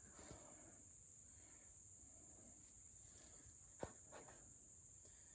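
Near silence with a faint, steady chorus of crickets trilling, and one soft click about four seconds in.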